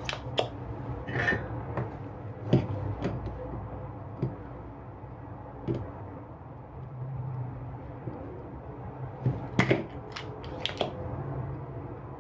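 Scattered light clicks and taps of metal tools against a small plastic plug and its circuit board during desoldering, with a quick run of sharper clicks near the end, over a low steady hum.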